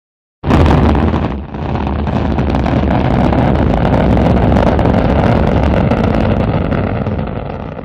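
Rocket launch roar that starts suddenly about half a second in, dips briefly a second later, then runs as a steady deep rumble with crackling before fading toward the end.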